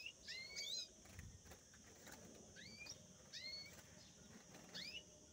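Caged finches chirping faintly: short rising chirps in three small clusters, near the start, about halfway through and near the end.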